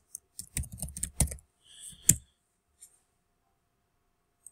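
Typing on a computer keyboard: a quick run of keystrokes over the first second and a half, then one sharper click about two seconds in.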